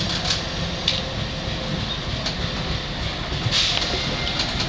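Railroad tank car rolling slowly along the track during a shove toward a coupling, its wheels rumbling steadily on the rails with a few sharp metal clicks and a brief high screech about three and a half seconds in.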